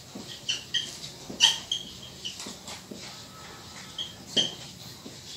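Whiteboard marker squeaking in short strokes as words are written on the board, with the loudest squeaks about a second and a half in and again near four and a half seconds.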